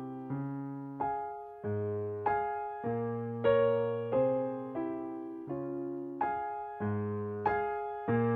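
Background piano music: gentle chords struck about every two-thirds of a second, each one fading away before the next.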